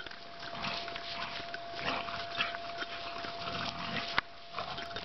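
Two pit bulls play-fighting on grass, making irregular dog noises and scuffling, with a faint steady tone underneath and a single sharp click about four seconds in.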